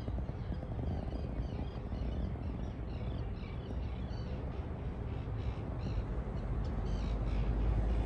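Birds calling repeatedly in short chirps over a steady low rumble.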